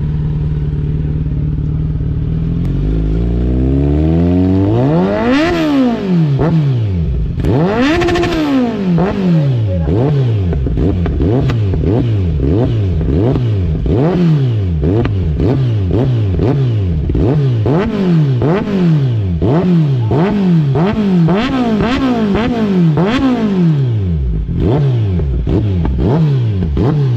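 Motorcycle engine idling steadily, then revved over and over from about three seconds in, its pitch climbing and dropping roughly once a second with each throttle blip.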